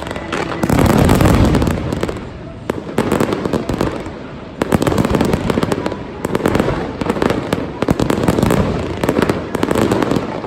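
New Year fireworks display: a dense, continuous barrage of crackling bangs, easing for a couple of seconds and then building again about halfway through.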